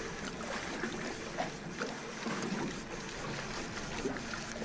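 Wind and water sounds around a small boat at sea, a steady noise with faint scattered knocks and splashes.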